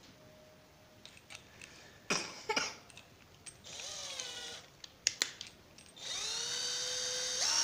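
Lomvum 25 V cordless drill/driver motor whirring up briefly and winding down about four seconds in, with a few sharp clicks around it, then running steadily from about six seconds and speeding up near the end.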